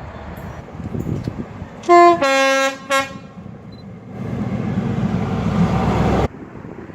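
Train horn sounding a short blast about two seconds in, a longer blast right after, and a quick toot near three seconds, over the rumble of a train. The train noise then builds and cuts off abruptly about six seconds in.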